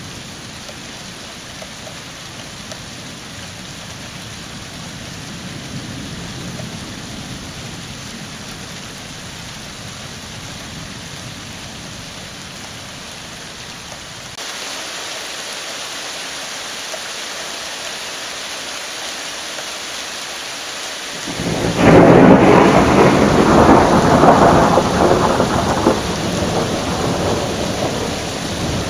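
Steady rain hiss with a low distant thunder rumble, then about three-quarters of the way in a sudden loud thunderclap that rolls on for several seconds and swells again near the end.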